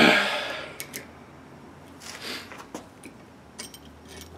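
A loud metal clank at the very start that rings and fades over about a second, then a few light metal clicks and taps. These are a valve spring and a valve spring compressor tool being set onto a cylinder head.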